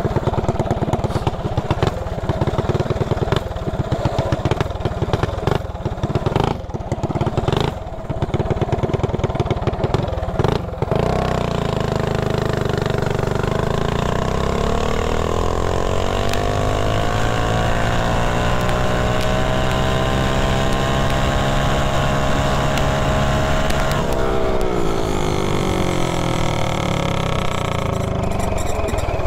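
Mini bike's single-cylinder engine, fitted with a PWK28 flat-slide carburetor, pulling hard on a top-speed run. It is choppy and uneven at first, then from about a third of the way in its pitch climbs steadily as the bike gains speed and holds near the top. It drops sharply as the throttle is rolled off, then rises again near the end.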